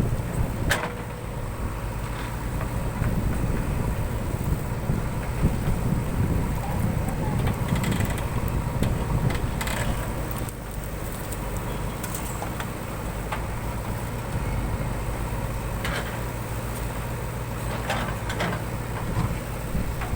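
JCB 3DX backhoe loader's diesel engine running steadily at work, with a few sharp metal knocks now and then.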